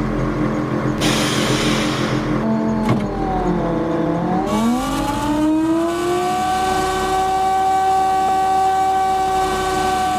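An engine running, with a burst of hiss about a second in; about four and a half seconds in its pitch rises and then holds steady for several seconds.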